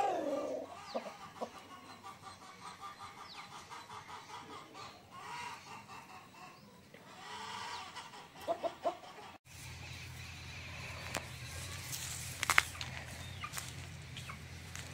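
Rooster clucking: a loud call right at the start and a few short calls about eight and a half seconds in. After an abrupt cut a little past halfway, a steady low hum takes over, with one sharp click.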